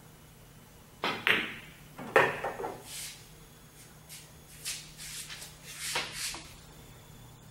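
A pool shot: the cue tip strikes the cue ball about a second in, a sharp click follows as the cue ball hits an object ball, and about a second later comes the loudest knock, as the object ball is pocketed. A few lighter knocks follow as the balls roll and settle.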